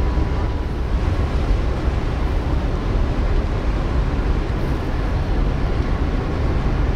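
Wind buffeting the microphone: a steady, uneven low rumble with a hiss above it.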